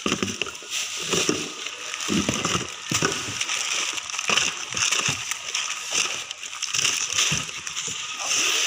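Plastic food pouches rustling and crinkling with irregular knocks of tin cans and cardboard as goods are packed by hand into a cardboard box.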